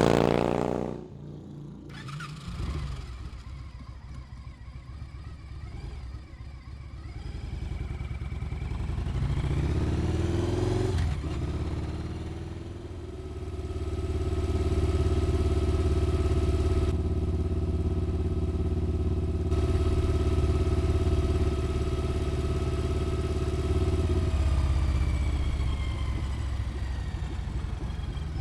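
2004 Victory Vegas V-twin motorcycle passing close by at speed and fading away. Then the engine and transmission are heard from on board as the bike pulls away, climbs in engine speed with a shift about eleven seconds in, and settles into steady cruising.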